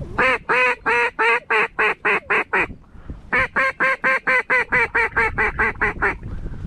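Mallard duck call blown in two quick strings of loud quacks, about ten notes and then about fourteen after a short pause, a hail-and-feed style calling meant to pull passing mallards in to the decoys.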